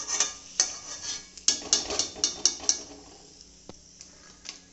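Hot oil sizzling in a metal wok as a fried sago papad is lifted out, a perforated metal skimmer clinking and scraping against the pan several times. After about three seconds the clatter stops and only a quieter sizzle with a couple of faint clicks remains.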